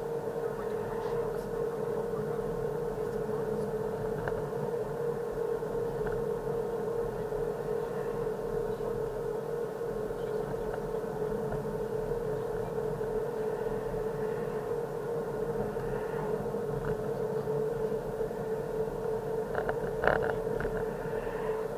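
Car driving on a paved road, heard from inside the cabin: steady engine and tyre noise with a constant hum. There are a few short knocks near the end.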